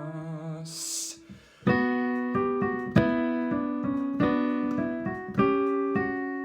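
Piano music: chords played in a steady repeated rhythm, each strike dying away, starting after a brief pause about a second and a half in.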